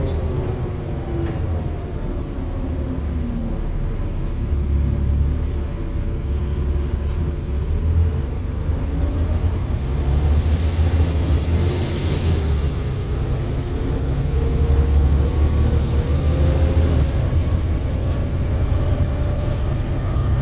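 VLA-class Volvo B7TL double-decker bus heard from on board while driving: the engine swells and eases as the bus speeds up and slows, with a transmission whine that glides up and down in pitch and a few light rattles.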